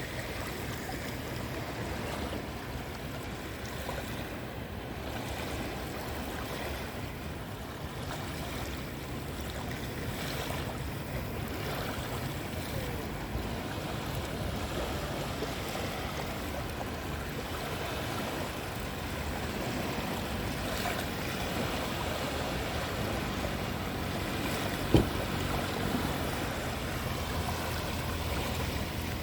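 Sea waves washing onto the shore in a steady surf noise, with one sharp click near the end.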